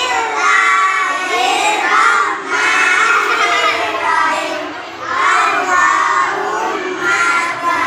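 A group of young children chanting their before-meal prayer together in unison, in a sing-song voice.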